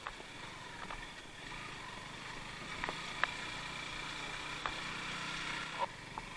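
KTM motorcycle engine running steadily at low speed while climbing a wet cobbled road, with a few light knocks scattered through.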